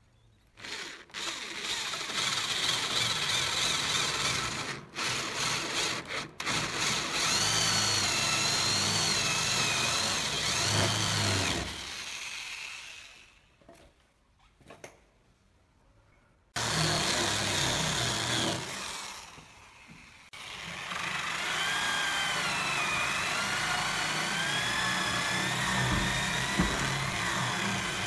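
Corded electric drill boring into a wooden door with a large bit, its motor whine wavering in pitch as the load changes. It stops for a few seconds near the middle, then runs again.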